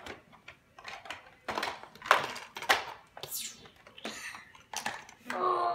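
Hard plastic toy figures and vehicles knocking and clattering against a plastic Batman playset as they are handled: a string of irregular sharp clicks and clacks. A child's voice sounds briefly near the end.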